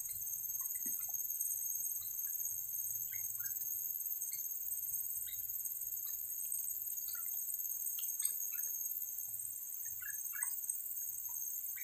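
Steady, high-pitched drone of insects in the surrounding forest, with scattered short bird chirps.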